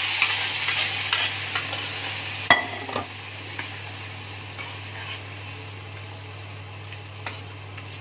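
Hot ghee tadka of mustard seeds, cumin, dried red chillies and curry leaves poured into a kadhai of dal, sizzling loudly and dying down over the first few seconds. A steel ladle stirs it in, with a sharp metal clank about two and a half seconds in and a few light taps after.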